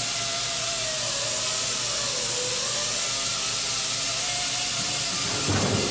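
Steady hissing noise with a faint wavering hum underneath, and a short dull knock near the end.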